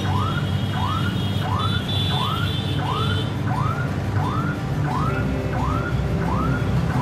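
An electronic alarm or siren sounding a rising whoop over and over, about three every two seconds, over a low rumble of street traffic.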